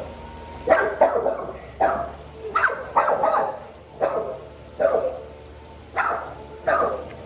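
Dog barking repeatedly: short, loud barks come about every half second to a second, around a dozen in all.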